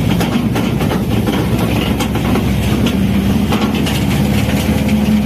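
A tempo goods carrier's engine drones steadily as it drives along the road, heard from inside its cargo bed. The body and load bed rattle and clatter throughout.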